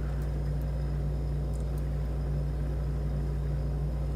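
Steady low hum running unchanged throughout, with a few faint light ticks of lock-picking tools working the pins of a pin-tumbler lock.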